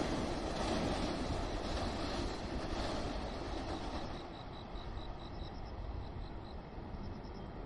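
Yellow electric local train running along the line, its rumble fading as it moves away. Midway a string of short high chirps is heard.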